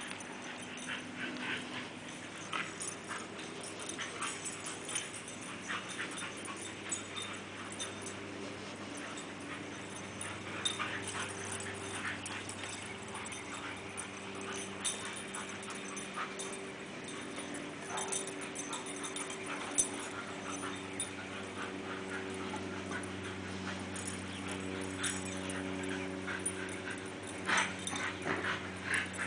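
Dogs playing rough together: a Rottweiler, a Queensland heeler and a golden retriever whining and yipping in short bursts, with scattered scuffs, over a steady low hum. The sounds come thicker near the end.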